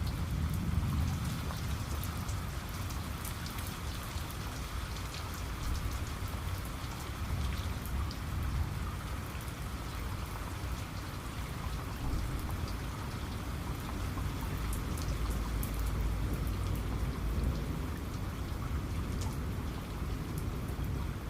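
Steady rain falling, a dense, even hiss of many small drop ticks over a low rumble.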